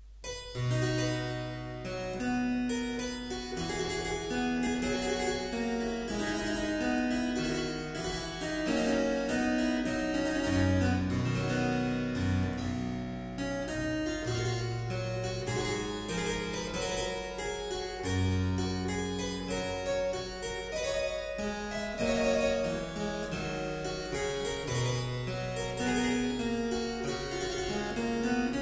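Harpsichord music: a steady flow of quick plucked notes over held bass notes that change every second or two.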